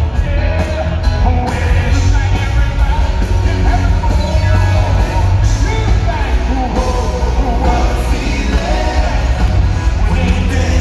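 Live band music with a male lead singer singing into a handheld microphone, over a heavy, steady bass and drums.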